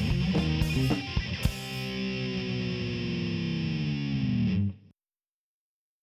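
A band song ending: last drum hits about a second and a half in, then a held distorted guitar chord that rings on, slowly sinking in pitch, and stops abruptly.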